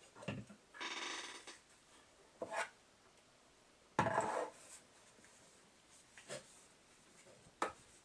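Tissue rubbing over the copper coldplate of a graphics card cooler, a short scrubbing stroke about a second in, with knocks and clicks as the metal cooler is handled on a wooden desk; the loudest is a clatter about four seconds in.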